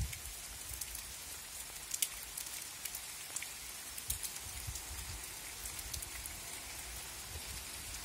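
Steady rain falling on tree leaves and soil, an even hiss with many separate drops ticking close by.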